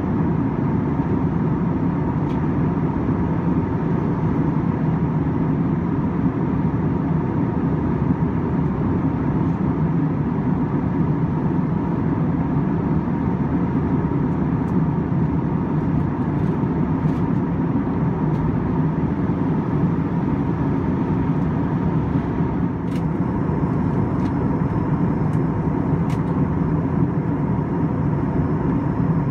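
Steady cabin drone of an Airbus A321-231 in cruise, heard inside the cabin: airflow and IAE V2500 engine noise, with a thin steady whine running through it.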